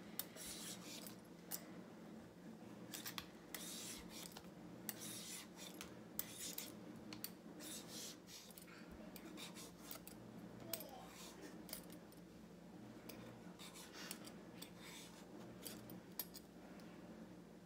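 Faint, repeated short scraping strokes of a hand-held vegetable peeler shaving the skin off a rock-hard raw butternut squash.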